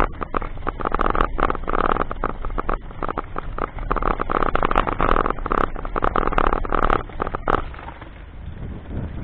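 Road noise from a moving vehicle on a rough, narrow road: a steady rumble with frequent sharp rattles and knocks throughout, easing off about eight seconds in.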